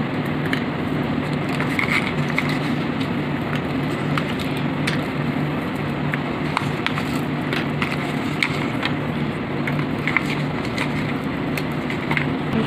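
Scattered small clicks and crackles of thin set chocolate pieces snapping apart and aluminium foil crinkling under the hands, over a steady low hum and hiss.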